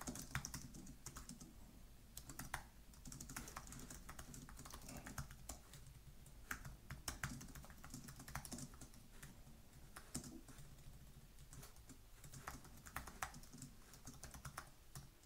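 Fast typing on a computer keyboard: a faint, uneven run of keystroke clicks.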